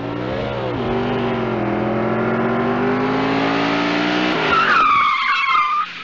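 Car engine accelerating, its pitch climbing steadily, then tyres screeching for about a second near the end.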